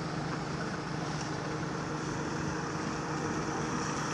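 Engines of delivery vans running as they pull out onto the road, a steady low drone with a faint hum of engine tones, growing a little louder near the end.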